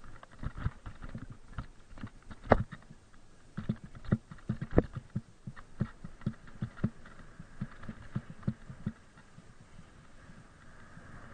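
Mountain bike and its mounted camera jolting down a rough dirt trail: a run of dull knocks and rattles, two to three a second, with two sharper cracks. The knocks die away near the end, leaving a faint steady hiss.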